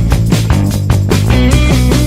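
Background music: an upbeat rock track with guitar and a steady driving beat.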